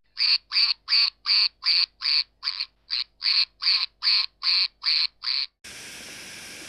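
A duck-quack sound effect repeated in an even run, about fourteen quacks at roughly two and a half a second. It cuts off about five and a half seconds in, and a steady hiss takes over.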